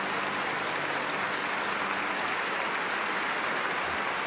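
Audience applauding steadily, with the last low piano chord dying away under it in the first couple of seconds.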